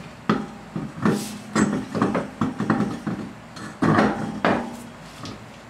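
Impact wrench in short bursts spinning lug nuts loosely onto a wheel's studs, among metallic clinks and knocks from the nuts and socket. The loudest bursts come about a second in and again about four seconds in.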